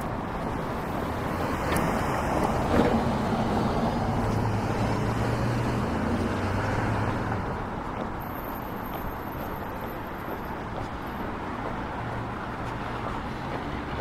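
Street traffic, with a vehicle passing close by, its engine hum swelling a couple of seconds in and fading after about seven seconds. A single sharp click about three seconds in.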